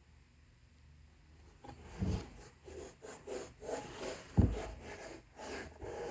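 Handling noise from a Grant Stone Edward leather boot being turned and rubbed in the hands: irregular rubbing and scuffing starting about two seconds in, with two dull knocks, the louder one near the middle.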